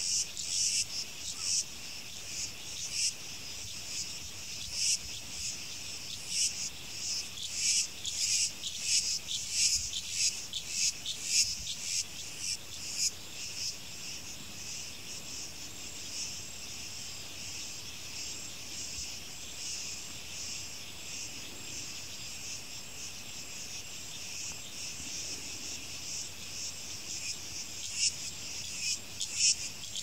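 Insect chorus of crickets or cicadas: a steady high-pitched shrilling with rapid pulses. It pulses most strongly for about the first twelve seconds, evens out in the middle, and picks up again near the end.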